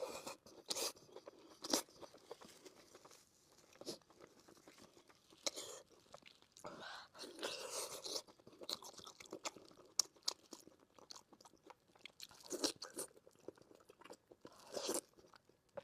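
A person eating close to the microphone: chewing braised pork belly with irregular wet clicks and mouth smacks, a few of them louder.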